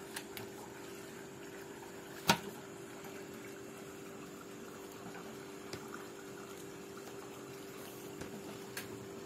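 A small motor hums steadily over a faint hiss. A single sharp click about two seconds in is the loudest sound, with a few fainter ticks later.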